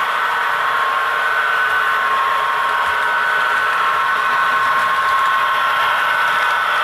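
HO scale model BNSF diesel locomotive running toward the camera: a steady whirring hum with a high whine and little deep bass.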